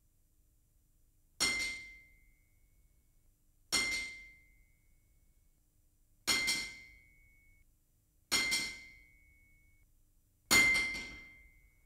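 Hammer striking metal, five ringing blows about two seconds apart. Each has a bright clang and a clear high ring that fades over about a second.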